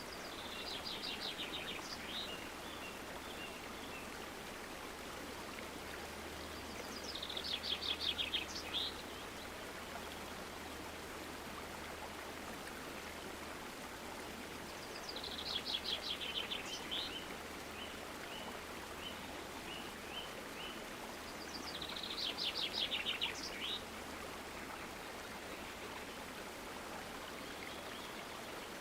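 Stream flowing steadily while a songbird sings four times. Each song is a rapid trill of high notes, sometimes followed by a few spaced single notes.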